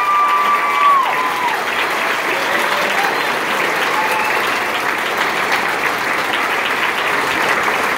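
Large audience applauding and cheering, with long high cheers held over the clapping for the first second and a half.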